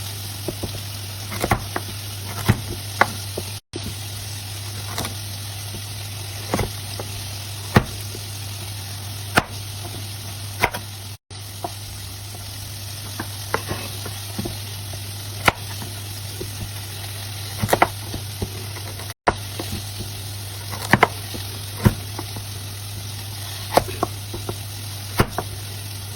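Vegetables sizzling as they are stir-fried in a pan, with a steady hiss and a low hum underneath. A spatula knocks and scrapes against the pan every second or so, and the sound cuts out briefly three times.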